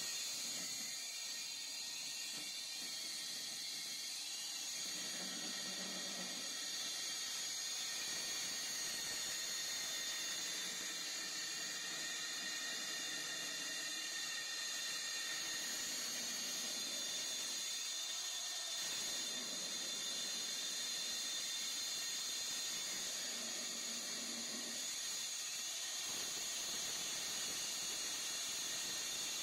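Rig-mounted diamond core drill with a large core bit cutting dry through a wall: a steady high-pitched motor whine over a grinding hiss, held at a constant pitch and level. It runs without the water feed, so the cut throws out dust.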